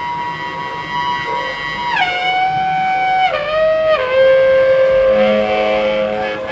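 Saxophone playing long held notes that step down in pitch three times, about two, three and four seconds in, each with a short slide, over quieter electronic tones.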